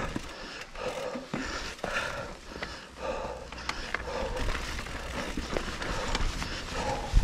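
Trek Slash 7 full-suspension mountain bike riding over a rocky dirt trail: tyres crunching and the bike rattling with sharp clicks and knocks, wind rumbling on the camera microphone, and the rider breathing hard in irregular puffs.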